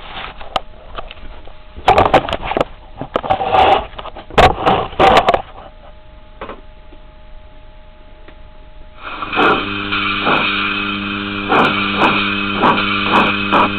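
Sampled steam-locomotive sounds of a Harz Mallet from an eMotion XLS model-railway sound decoder. First come several short noisy bursts. Then, from about nine seconds, a steady hum starts, with rhythmic chuffs that gradually quicken as the locomotive gets under way.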